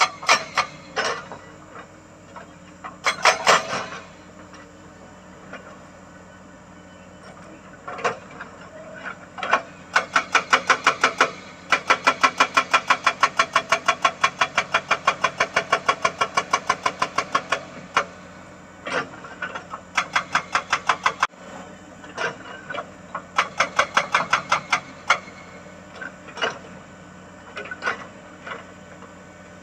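Excavator-mounted hydraulic rock breaker hammering rock in runs of rapid blows, about five a second, the longest run lasting about eight seconds in the middle, over the steady hum of the excavator's engine.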